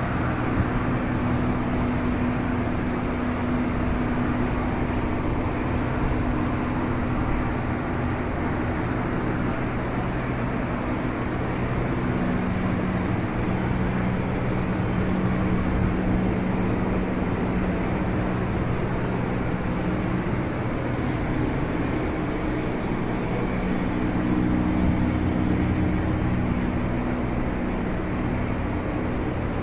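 Steady hum and rush of running boiler-room machinery, with low droning tones that shift slightly in pitch now and then.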